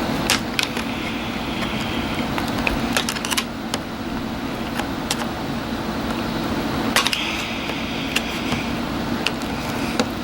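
Scattered small clicks and taps of a hand tool against the small metal and plastic parts of an RC truck's drivetrain, with two brief scraping sounds, over a steady low background hum.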